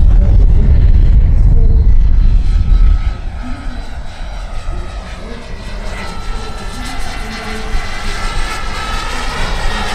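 Jakadofsky Pro 6000 turbine of a large scale RC Gazelle helicopter whining steadily in flight, along with its rotor. For about the first three seconds heavy wind rumble on the microphone covers it. The whine grows louder toward the end as the helicopter comes closer.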